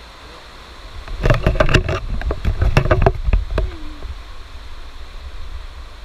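A burst of knocks and rubbing from a small action camera being handled and jostled close up, over the steady rush of a forest stream.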